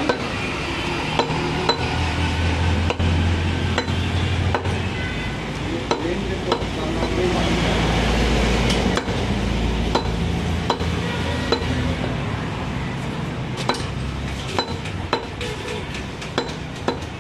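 Long butcher's knife cutting beef into chunks on a wooden log chopping block: sharp knocks of the blade striking the wood at irregular intervals, coming thicker near the end, over a steady low hum.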